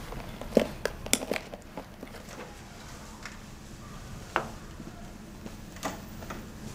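Handling noise of a phone being slipped into a leather handbag with metal buckles: a quick run of clicks and taps about half a second to a second and a half in, then two single sharp knocks later on.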